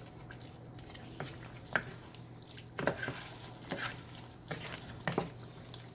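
Chicken curry gravy sizzling in a pot while it is stirred, the spoon scraping and clinking against the pot about once a second.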